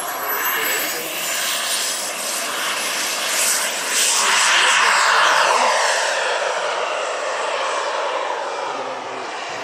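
Turbine engines of a large scale RC Airbus A330-200 model jet at full power on take-off: a high whine climbs in pitch over the first couple of seconds over a broad jet rush. It is loudest about four to six seconds in as the model lifts off and passes, then fades as it climbs away.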